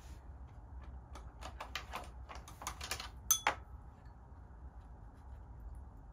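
Chopsticks picked up from a wooden tray: a quick run of light clicks and taps, with one bright ringing clink about three seconds in.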